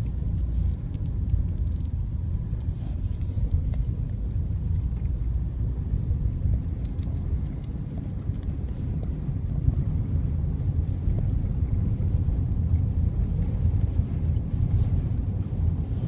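Vehicle cabin rumble while driving on a dirt road: steady low engine and tyre noise heard from inside the cab, with a few faint ticks.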